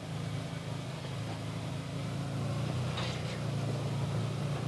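Can-Am Maverick Trail side-by-side's engine running at a crawl, its hum growing gradually louder as it pulls over rough trail. About three seconds in there is a short scratchy sound.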